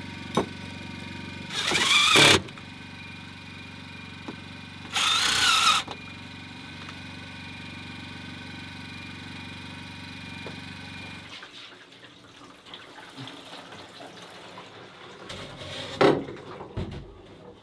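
A cordless drill whirs in two short bursts, about two seconds in and again about five seconds in, over a steady mechanical hum that stops about eleven seconds in. A single sharp knock follows near the end.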